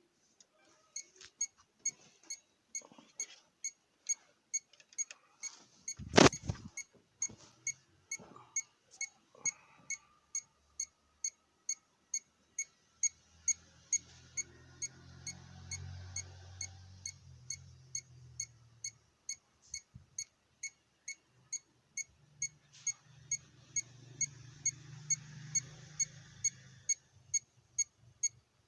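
Electronic beep repeating steadily about twice a second, with scattered clicks and knocks, a sharp knock about six seconds in, and a low hum that comes in twice for several seconds in the second half.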